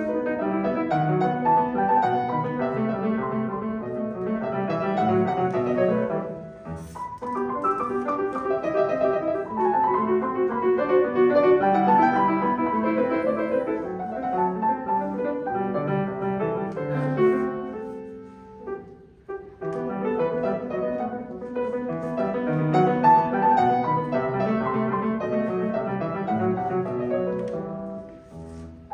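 Grand piano played solo: a classical piece of continuous runs of notes, with two brief breaks between phrases, about a quarter of the way in and again about two-thirds of the way in.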